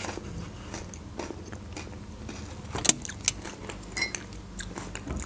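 Eating and table-handling sounds: a metal spoon clicking and scraping in a plastic dessert cup, with a sharp click about three seconds in and a light glassy clink around four seconds in as the glass tea mug is picked up.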